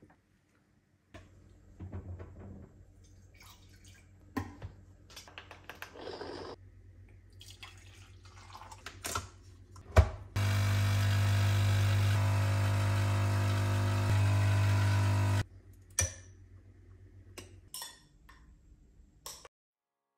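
Capsule espresso machine: a sharp click, then its pump buzzing loudly and steadily for about five seconds as it brews, cutting off abruptly. A low hum and light clicks and knocks from handling the machine come before and after.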